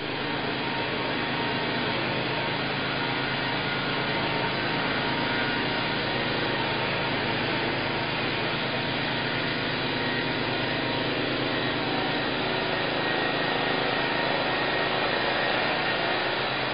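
Steady hiss and hum with faint steady tones in it, unchanging, with no distinct events.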